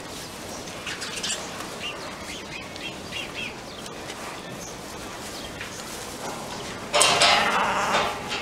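Small birds chirping a few times, then about seven seconds in a loud bleat from a sheep, over low barn background noise.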